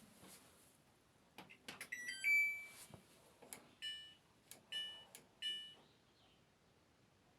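Electronic beeps from a washing machine's control panel as it is operated: a few light clicks, a longer beep, then three short beeps about a second apart.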